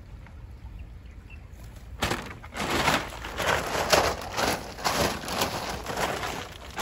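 A nylon cast net and a woven plastic sack being handled as fish are picked out of the net. Irregular rustling and scuffing starts about two seconds in.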